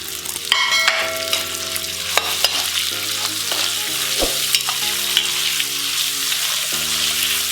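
Onion-tomato masala with whole spices sizzling steadily in hot oil, stirred with a spoon that scrapes and knocks against the pan a few times.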